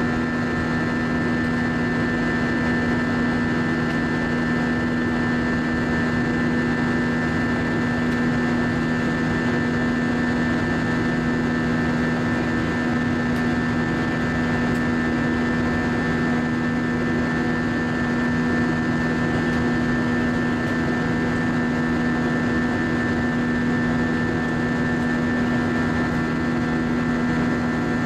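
Steady cabin noise of an Airbus A320 in flight, heard from a window seat over the wing: the jet engines and rushing air make an unchanging drone with a few held humming tones.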